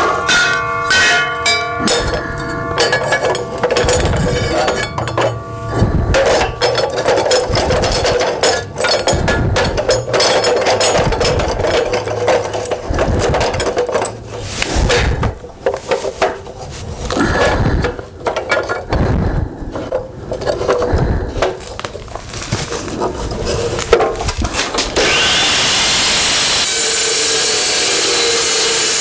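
Evolution Rage 2 saw cutting steel stock: an uneven stretch of rasping and sharp knocks that rises and falls, settling at about 25 s into a steady, even sawing sound.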